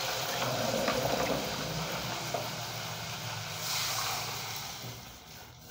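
Onions frying in hot oil in a pan, giving a steady sizzling hiss that swells briefly about two-thirds of the way through and then fades.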